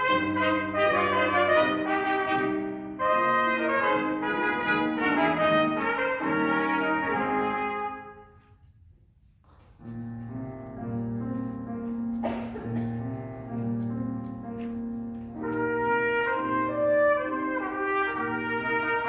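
Two trumpets playing a classical duet with piano accompaniment. The music stops for about a second and a half about eight seconds in, then starts again.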